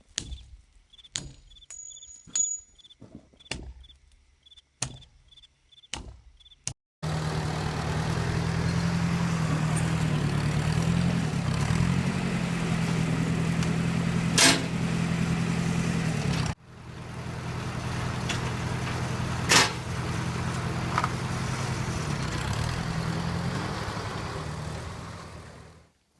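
A string of sharp clicks, then a Ford tractor's engine running steadily, its pitch wavering briefly as it works. The engine sound cuts off abruptly and then returns at the same pitch, with a single sharp knock in each stretch.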